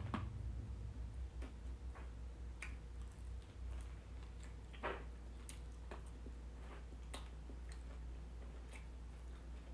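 Quiet eating sounds: chewing and scattered, irregular small clicks of forks and takeout containers, over a steady low hum.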